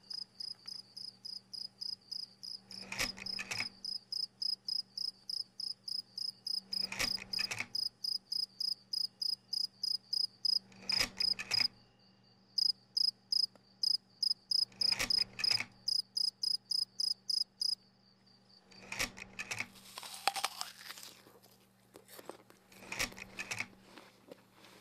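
Insect chirping in a steady high-pitched rhythm, about three chirps a second, breaking off briefly near the middle and stopping about three quarters of the way through. A short rushing sound recurs about every four seconds over a faint steady low hum.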